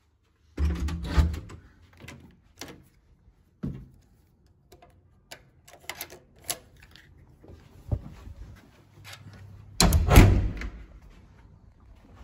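Hotel room door and its electronic key-card lock being worked: a string of sharp clicks and knocks, with a louder thud near the end.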